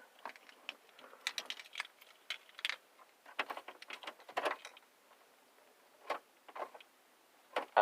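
Car keys clicking and rattling in the ignition switch of a 2001 Chevrolet Monte Carlo LS as the key is turned, a scatter of small sharp clicks with no starter cranking and no engine: a no-crank, no-start, which a mechanic puts down as probably something to do with the security system.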